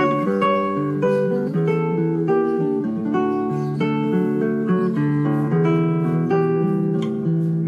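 Background music on acoustic guitar: plucked notes and chords changing several times a second at a steady level.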